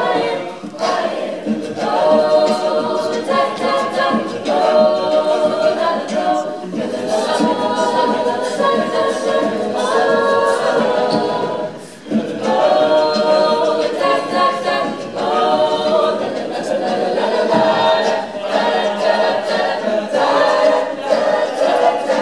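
Mixed-voice high school a cappella group singing in harmony, male and female voices together, with a brief pause about halfway through.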